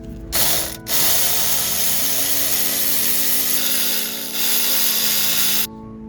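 A loud mechanical rattle, like a workshop tool running: a short burst about a third of a second in, a brief break, then nearly five seconds more before it cuts off suddenly. Background music plays underneath.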